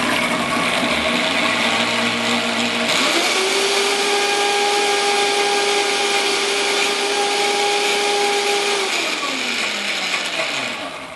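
Countertop blender whirring through an oil-and-vinegar dressing. Its motor steps up to a higher pitch about three seconds in, then is switched off near the end and winds down to a stop.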